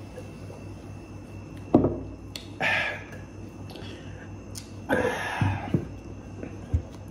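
Mouth and breath sounds of two men drinking water from glass jars: a gulp about two seconds in, then two loud breathy exhales, with a small click near the end.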